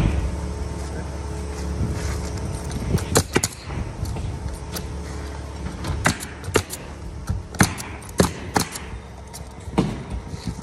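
Pneumatic roofing coil nailer firing nails into the roof: about eight sharp, separate shots at uneven spacing, starting about three seconds in, over a low rumble that is heaviest in the first couple of seconds.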